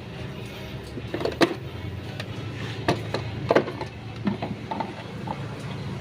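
An engine running steadily as a low hum, with several sharp knocks and clanks over it, the loudest about one and a half, three and three and a half seconds in.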